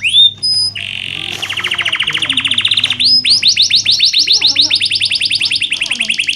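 Domestic canary singing: long, rapid trills of quickly repeated notes, switching every second or two between runs of sweeping notes and faster buzzing trills.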